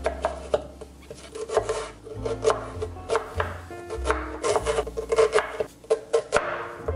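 A large kitchen knife chopping an onion on a bamboo cutting board: a run of sharp knocks of the blade striking the wood. Background music with low held notes plays underneath.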